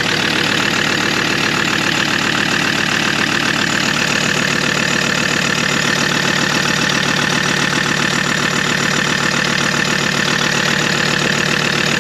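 Car engine idling steadily and smoothly, its firing pulses even and unchanging.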